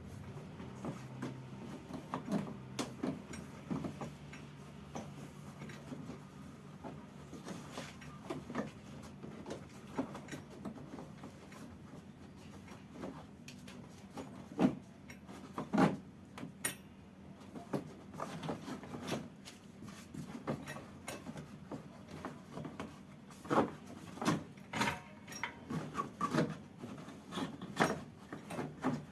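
Irregular clicks, taps and knocks of hand tools and parts being handled, thicker after about halfway, over a low steady hum.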